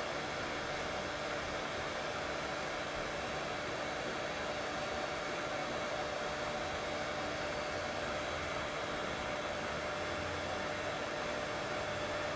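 Steady, unchanging white noise for soothing a colicky baby to sleep, with faint steady hum tones mixed into the hiss.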